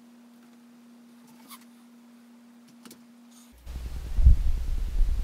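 Near silence with a faint steady hum. About three and a half seconds in, the sound switches abruptly to wind buffeting an outdoor microphone: a gusty low rumble, loudest about half a second after it starts.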